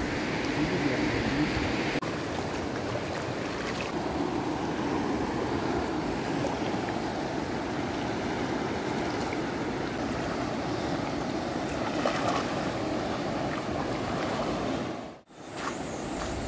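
A fast-flowing, muddy river rushing over rocks and small rapids, a steady noise of running water that breaks off for a moment near the end.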